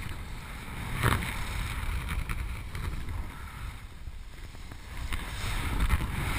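Wind rushing over a GoPro action camera's microphone in paraglider flight, rising and falling in gusts, with a sharper surge about a second in and quieter air around four to five seconds in.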